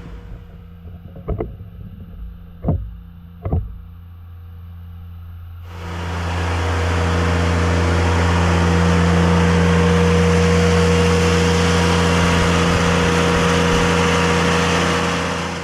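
Kubota diesel engine of a small mini excavator running steadily, with three sharp knocks in the first few seconds. About six seconds in it grows much louder and holds there.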